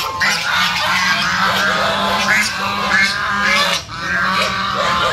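A flock of white domestic geese honking and calling over one another without a break, harsh and fierce-sounding, with a short lull a little before the end.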